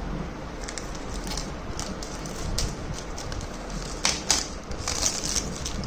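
Clear plastic tape seal being peeled off a small cardboard box, with scattered crinkles and crackles and two sharper ones about four seconds in, over a steady low hum.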